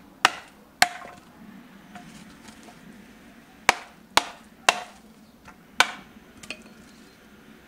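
Hammer blows on the steel socket of an old Soviet shovel, each a sharp metallic knock, some with a brief ring. Two strikes come in the first second, then after a pause about four more land roughly half a second apart, with a few lighter taps after.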